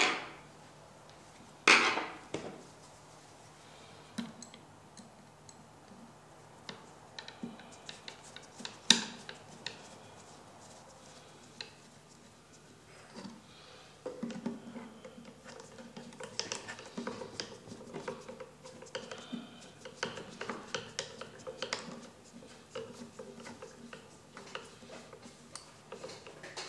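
Small metal parts at the needle bar and presser foot of an antique Singer sewing machine being handled and adjusted: sharp metal clicks and knocks, loudest twice early on, then a busier run of light clicking and rattling from about halfway.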